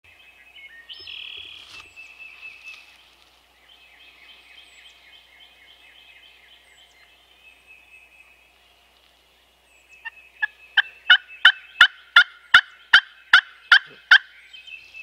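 Turkey yelping: a run of about a dozen loud, sharp calls, about three a second, getting louder, in the last few seconds. It follows several seconds of faint songbird singing.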